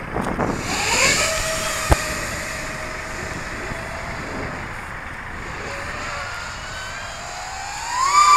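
Dquad Obsession FPV racing quadcopter's motors and propellers whining. The pitch rises about a second in as it lifts off and holds steady, then surges up and falls back near the end at its loudest. A single sharp click comes about two seconds in.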